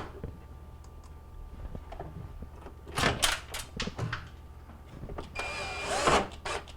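Cordless drill driving screws back into a microwave's vent fan housing, in short runs of its motor about three seconds in and again from about five and a half seconds in.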